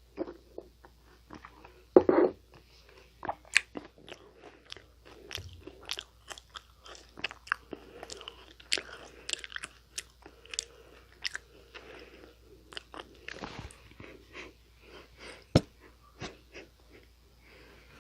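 Biting into and chewing Nunettine, a flaky Korean puff-pastry cookie, with many sharp, crisp crackles. One loud bite comes about two seconds in and another about two seconds before the end.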